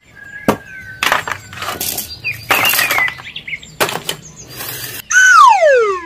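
A string of short whooshing noise bursts with a few faint chirps. About five seconds in comes a loud descending whistle with overtones, sliding down over about a second like a cartoon falling sound effect.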